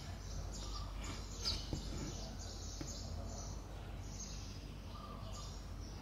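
Embroidery thread drawn through cross-stitch fabric in soft swishes, one after another, over a steady low hum.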